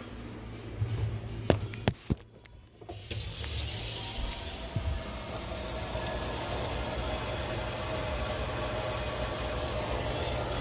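A few sharp clicks and knocks, then about three seconds in a dishwasher starts filling: a steady rush of water into the tub with a faint hum from the inlet. It is the first fill of a newly installed dishwasher, run to check the water connections for leaks.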